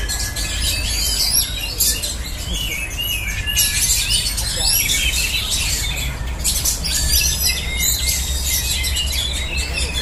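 Many caged oriental magpie-robins singing at once: a dense chorus of overlapping high whistles and chirps, over a low steady rumble.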